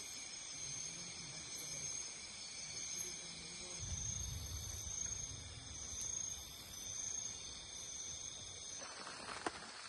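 Night insect chorus of crickets and other insects, a steady, slowly pulsing high-pitched trilling. A low rumble comes in about four seconds in and fades near the end. Just before the end the chorus changes abruptly and a few sharp clicks sound.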